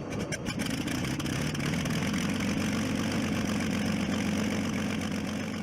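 An engine idling steadily, with a low, even hum.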